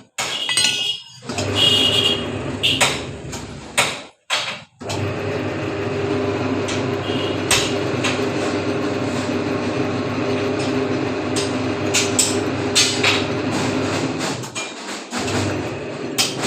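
Metal knocks and clinks, then the electric motor of an iron square-bar bending machine starts about five seconds in and runs with a steady hum. Sharp metallic clicks and clanks sound over it. The motor stops near the end.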